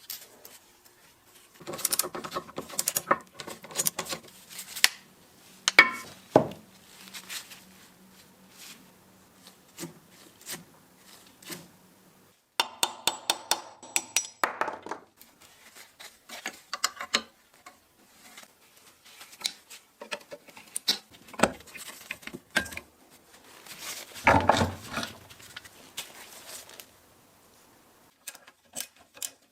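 Metal parts and hand tools clinking and knocking irregularly on a workbench as a bench drill press is taken apart, with a run of quick clicks about halfway through and a louder cluster of knocks near the end.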